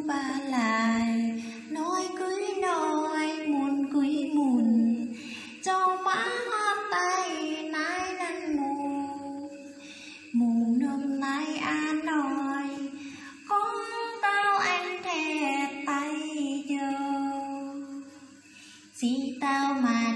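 A woman singing a narrative folk ballad solo into a handheld karaoke microphone. She sings long drawn-out phrases with sliding pitch, breaking off briefly about ten seconds in and again near the end.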